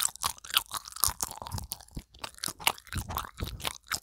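Close-up chewing of a chocolate-coated jelly snack: quick, irregular crunching and mouth clicks, several a second.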